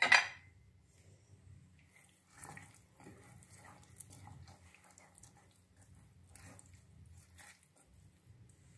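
A metal ladle stirring chopped vegetables, spices and water in a pressure cooker: faint, irregular wet stirring strokes.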